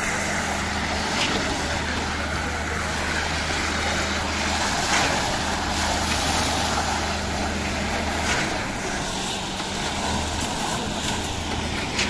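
Concrete-pour machinery running steadily: the small engine of a portable concrete vibrator with the concrete pump behind it, giving a continuous mechanical noise over a low steady hum that drops out briefly about a second in and again around eight to ten seconds in.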